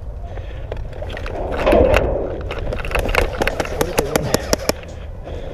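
An airsoft player running in gear to cover behind a car: footsteps and equipment rattling, with a steady low rumble of wind and handling on the body-worn camera's microphone. About three seconds in comes a quick run of sharp, irregular clicks and knocks.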